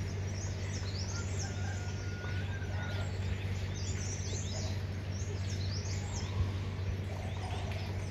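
Small birds chirping over and over in quick, high, downward-sliding notes, over a steady low hum.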